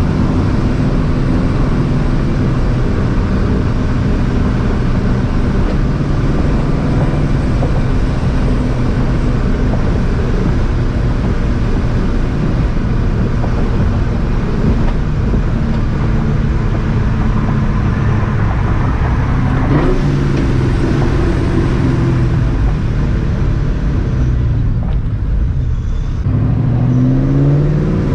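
The 4.6 L two-valve V8 of a straight-piped, Vortech-supercharged 2004 Mustang GT, running catless with long-tube headers, on a drive. The exhaust note is loud and steady while cruising, then rises in pitch near the end as the car accelerates.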